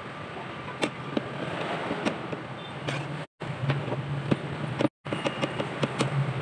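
Knife slicing Vienna sausages on a cutting board: scattered light taps and clicks of the blade meeting the board, over a steady background hum. The sound drops out abruptly twice.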